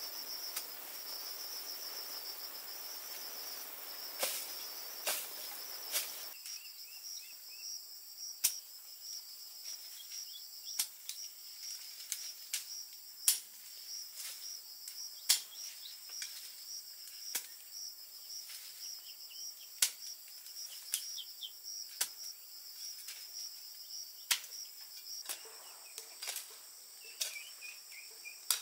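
A hoe strikes into weedy soil, giving a sharp chop every one to two seconds. Insects trill steadily and high-pitched throughout.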